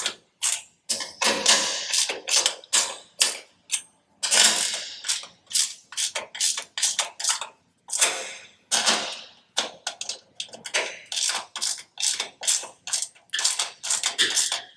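A 1/2-inch ratcheting wrench clicking as it tightens a nut on a steel sign bracket, in quick runs of strokes a few a second with short pauses between them.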